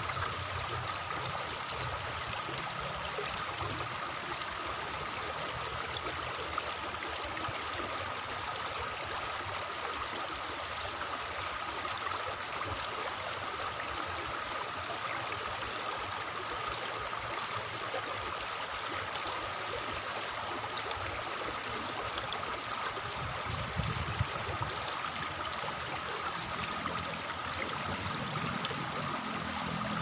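Water flowing and trickling along a concrete irrigation channel, a steady, even rush of running water.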